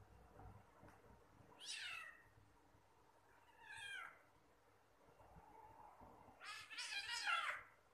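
Kitten meowing three times during a play fight: short calls that fall in pitch, the third, near the end, the longest and loudest.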